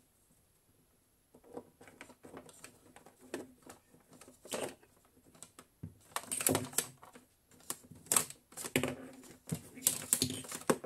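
Handling of power cables and plastic plugs being fed through holes in a workbench panel: irregular clicks, taps and knocks of plastic against the panel, sparse at first and busier and louder from about halfway through.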